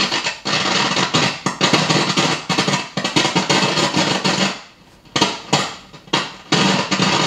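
ARP String Ensemble (Solina) output breaking up into loud crackling static with sharp pops over its string tone, the sign of a failing component in its audio path that the repairer traces to the modulator (effects) board. The crackle cuts out briefly twice in the second half.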